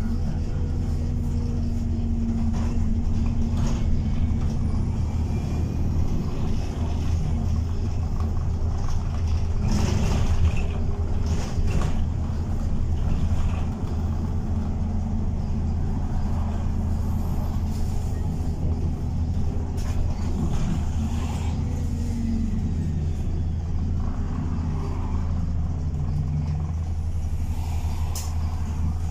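Interior noise of a single-deck bus on the move: a steady low engine and road drone, with scattered knocks and rattles from the body and fittings.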